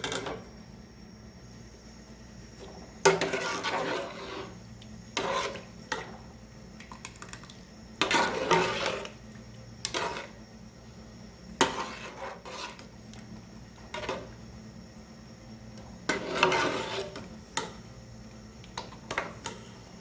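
A cooking utensil scraping and stirring against a cooking pot in a dozen or so separate strokes, each lasting from a fraction of a second to about a second.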